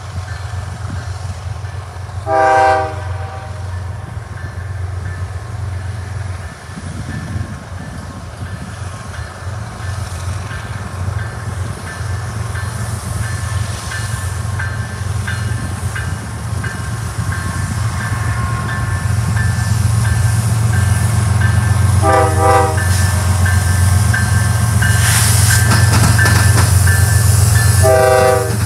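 An approaching diesel freight train, led by several locomotives: a low engine rumble that grows steadily louder as it nears. The locomotive's chime horn sounds three blasts: a short one a couple of seconds in, another about three quarters of the way through, and a third right at the end. A bell dings steadily in the second half.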